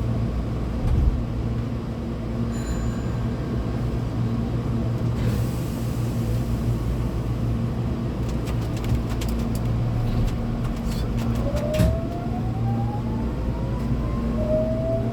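Hankyu 8200 series electric train pulling away, its Toshiba GTO-VVVF inverter giving a rising whine from about eleven seconds in that climbs again near the end as the train gathers speed. Under it runs a steady low hum, with a short hiss about five seconds in and a few clicks and a thump just before the whine starts.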